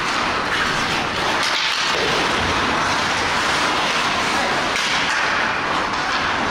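Ice hockey play: skate blades scraping and carving the ice in a steady hiss, with occasional faint knocks of sticks and boards.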